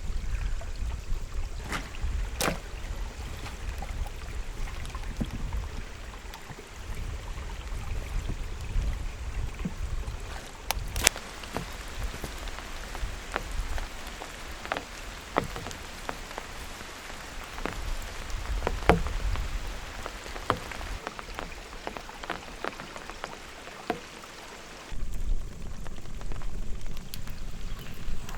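Steady rain, with heavy drops striking a surface in many sharp, irregular taps over a low rumble. The low rumble drops away briefly and returns abruptly about 25 seconds in.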